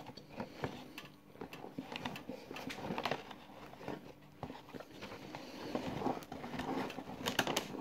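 Dry cornflour being sucked up through a drinking straw and eaten: irregular sucking noises with many small clicks and crackles, loudest about three seconds in and again near the end.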